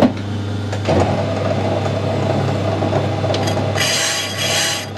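Metal lathe running, turning a trial cut on a cast iron brake drum; a steady hum underlies it, and a hissing cutting noise comes in sharply near the end.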